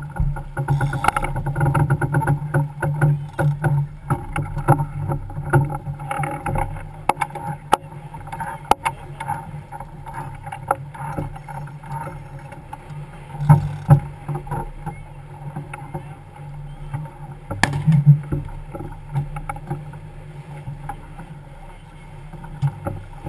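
Racing sailboat under way and heeled, with water rushing along the hull and wind on the microphone making a continuous rough rumble. Scattered short knocks run through it, and one sharp crack comes about 18 seconds in.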